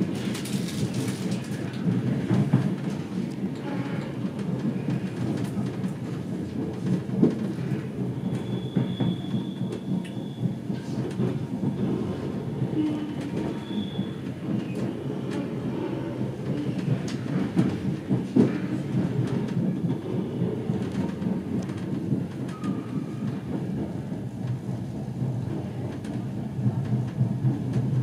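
Passenger train running along the rails, heard from inside the carriage: a steady low rumble of wheels on track with occasional sharp knocks from the wheels.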